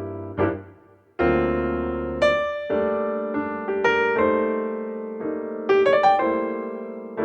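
Background piano music: struck chords and a melody, the notes ringing and fading, with a short pause about a second in.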